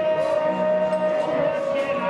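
Music, a song with steady held notes, playing at an even level.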